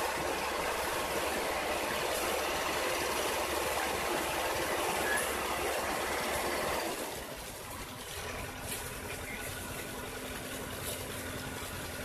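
Diesel engine of the excavator-and-tractor rig running steadily at a stand, dropping to a quieter idle about seven seconds in.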